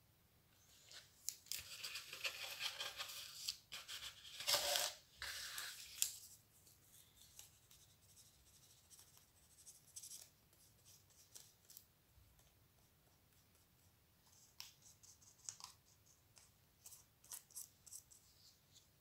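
Thin white card and cardboard rustling and scraping under the hands, dense for about five seconds starting a second in, then scattered light crackles and clicks.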